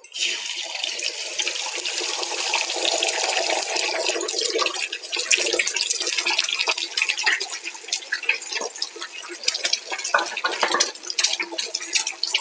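Eggs poured into hot oil in a kadai and frying: a sudden sizzle as they hit the oil, then steady sizzling with sharp crackles and spits that come more often from about five seconds in.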